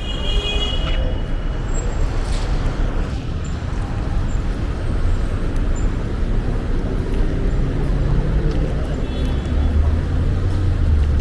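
Road traffic on a city street: steady engine and tyre noise, with a deeper engine hum growing louder near the end.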